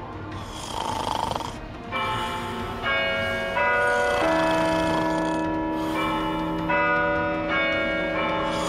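Snoring, then from about two seconds in, chiming clock bells: a tune of single bell strokes at different pitches, about one a second, each ringing on under the next.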